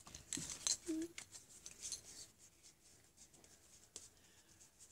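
Faint rustling and clicking of Pokémon trading cards being handled and slid through the hands, dying away after about two seconds, with a brief murmur about a second in.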